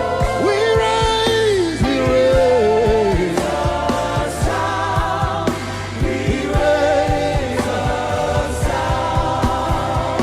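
Live gospel worship music: a lead voice and many voices singing together over a band with a steady drum beat.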